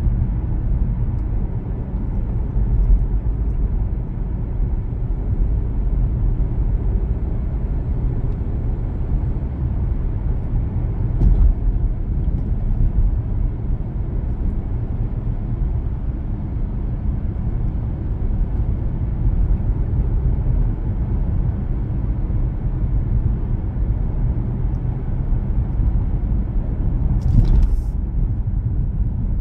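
A car driving along, a steady low rumble of road and engine noise, with two short knocks, one about eleven seconds in and a louder one near the end.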